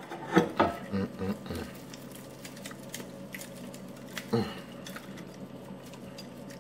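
Eating crispy fried chicken wings from a plate: a few short crunches and clicks in the first second and a half, then one more about four seconds in.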